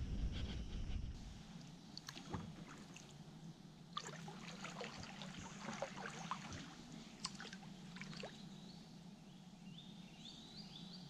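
Kayak paddle strokes: small splashes, drips and trickles of water off the blades, faint. A low rumble for the first second, and near the end a small bird sings a short phrase of stepped rising notes.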